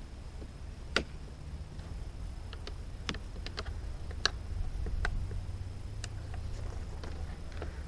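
Irregular light plastic clicks and taps as small drip fittings are pressed into and handled on the black feeder tubing of a hydroponic tower, the sharpest about a second in and just after four seconds. A steady low rumble runs underneath.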